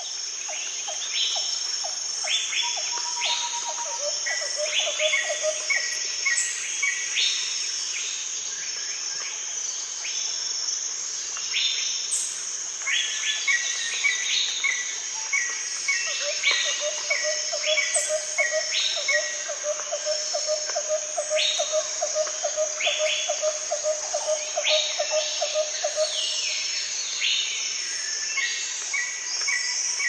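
Tropical forest ambience: a steady high-pitched drone of insects under many repeated chirping and whistling bird calls. A lower, rapidly pulsing trill comes in twice, briefly and then for about ten seconds.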